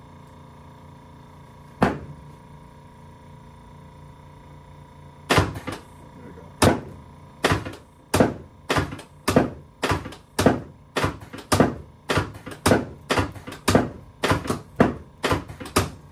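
Chiropractic drop table's lumbar section dropping with a thunk under thrusts on the lower back: one thunk about two seconds in, then from about five seconds a run of repeated thunks that quickens to about two a second.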